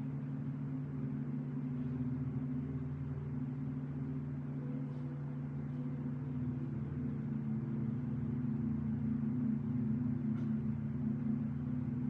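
Soft ambient meditation music: a low, sustained drone of held tones, with a higher tone joining about halfway through.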